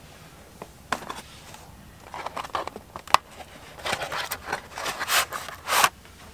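Food packaging being handled: a plastic meal tray scraping and rustling as it slides out of its cardboard sleeve. There is a sharp click about three seconds in, and the loudest rustles come near the end.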